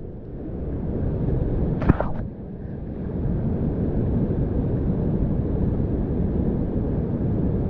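Rushing whitewater on a steep creek, a steady low rumble with wind buffeting the microphone, swelling over the first second, with one brief knock about two seconds in.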